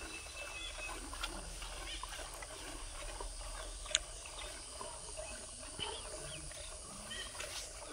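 Faint sounds of a cow being hand-milked into a small plastic bucket, with one sharp click about four seconds in.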